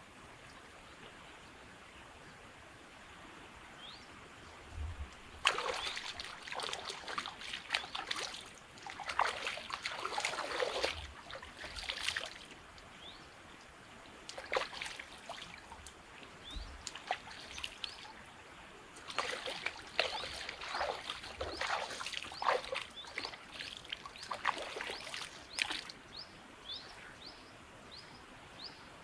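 Water splashing and trickling in two spells of several seconds each, over a quiet outdoor background with birds chirping faintly, the chirps repeating quickly near the end.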